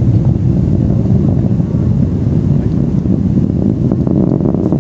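Falcon 9 first stage's nine Merlin engines heard from miles away as a loud, steady, deep rumble.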